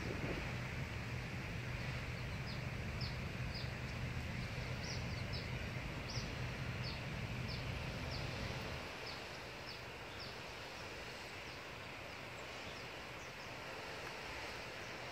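Outdoor ambience: a low steady hum that drops away about nine seconds in, with a bird giving short, high chirps over it, one every half-second to a second.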